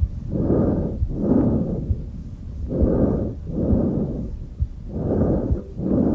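Tracheal breath sounds heard through a stethoscope over the trachea in the neck: harsh, hollow breathing. Three breaths, each a rush of inspiration followed by a rush of expiration, with a short pause between breaths.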